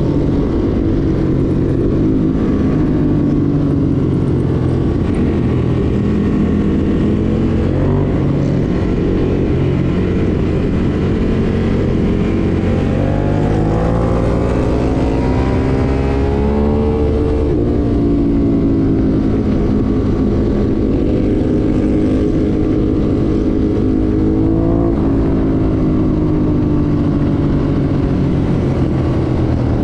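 Ducati Monster motorcycle's L-twin engine running under way, the revs rising and falling, with a climb under acceleration about halfway through and another shorter one later.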